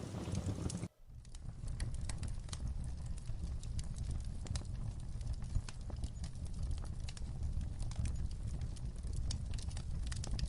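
Wood fire crackling in a fireplace: irregular sharp pops and snaps over a steady low rumble of burning logs. The sound drops out for a moment about a second in, then resumes.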